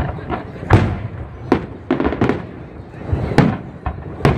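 Fireworks display: aerial shells bursting in a string of bangs at irregular intervals, each followed by a rumbling echo. The loudest comes about three quarters of a second in.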